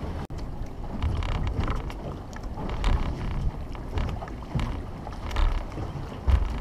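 Wind buffeting the microphone in uneven gusts, with water splashing against the hull of a small boat on choppy sea.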